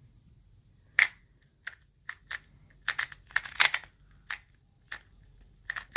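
Magnetic 2x2 speedcube being turned by hand: sharp plastic clacks of single layer turns, the first about a second in, then quick runs of several turns in a row about halfway through and near the end. The magnets are strong.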